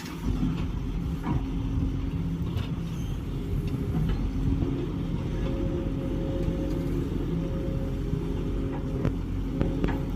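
Excavator's diesel engine running steadily, with a few sharp knocks scattered through.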